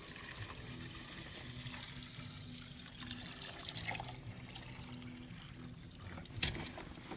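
Water poured from a plastic pitcher into a cardboard milk carton, a steady trickling splash as the carton fills. A single sharp knock near the end.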